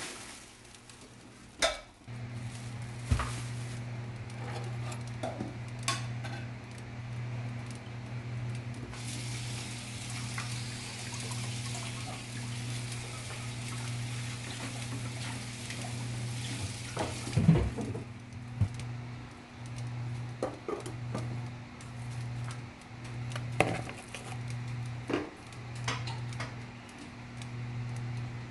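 Kitchen clatter of pans and utensils, with scattered clicks and knocks, over a steady low hum that begins about two seconds in and turns into an on-off pulsing in the last third. A high hiss runs through the middle.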